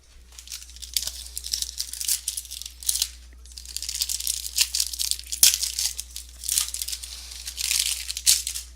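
A trading card pack's wrapper being torn open and crinkled by hand, in irregular rustling bursts with a couple of sharp clicks.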